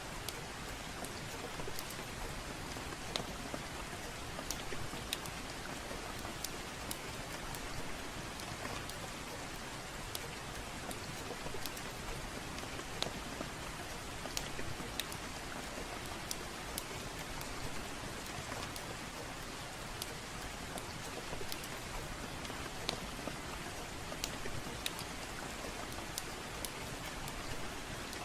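Steady rain falling, with the sharp, irregular pops and snaps of a crackling wood fire scattered through it.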